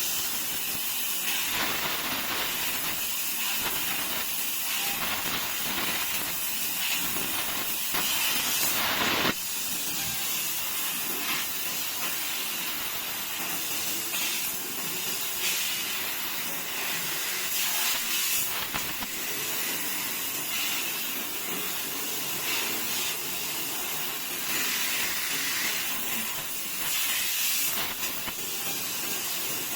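CNC tube laser cutter bevel-cutting a 3 mm thick square tube: a steady loud hiss of the cut and its assist gas, with louder bursts now and then, the longest about eight seconds in.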